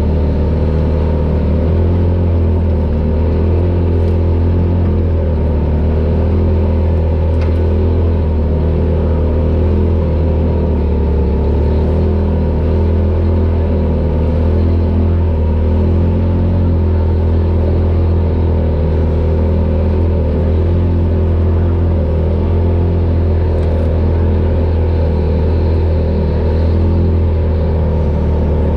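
Polaris RZR Pro XP side-by-side's engine running steadily as a deep, even drone.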